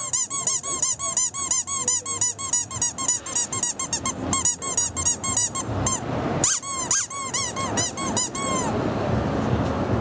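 A rubber squeaky toy squeezed over and over in quick succession, about three to four high squeaks a second, each rising and falling in pitch. The squeaking stops near the end, leaving a steady background rush.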